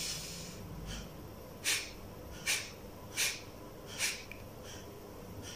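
Kapalbhati breathing: a deep inhale, then short, forceful exhalations expelled through the nose, about one every three quarters of a second, four strong ones with a fainter one before and after.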